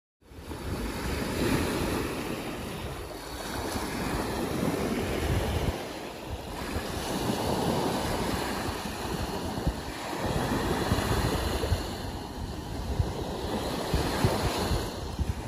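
Small Baltic Sea waves washing up on a sandy beach, the surf swelling and fading every few seconds, with wind buffeting the microphone.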